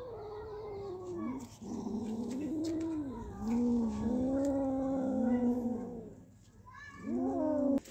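Kittens growling and yowling over a caught mouse, in long wavering calls that rise and fall one after another: the possessive growl of cats guarding prey. The calls break off briefly about six seconds in and start again near the end.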